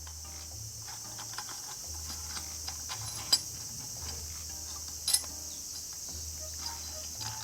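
Light mechanical clicks and ticks from parts and hand tools being handled during transmission disassembly, with two sharper clicks about three and five seconds in, over background music with a steady low bass line.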